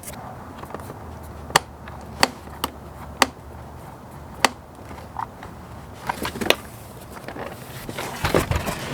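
Scattered sharp plastic clicks and handling rustle as electrical connectors are pushed back into the wiring of a car door during reassembly.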